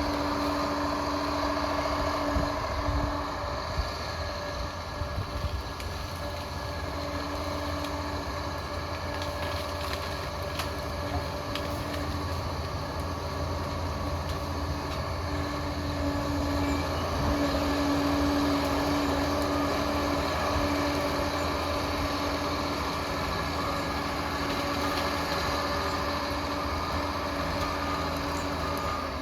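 Liebherr PR 746 crawler dozer's diesel engine running steadily, a continuous low rumble with a steady droning tone over it.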